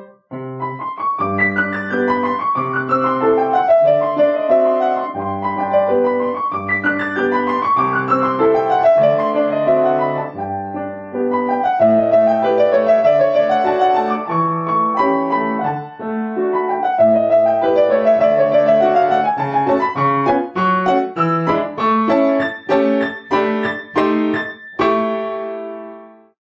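Background piano music with a flowing melody. Near the end the notes turn short and detached, then the music fades out.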